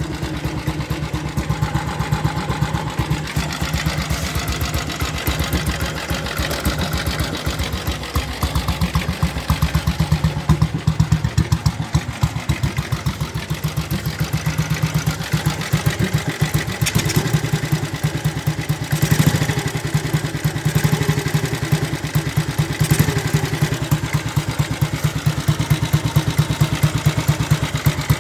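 Ariel Colt 200's single-cylinder engine idling with a steady, even beat of exhaust pulses, growing a little louder a few times.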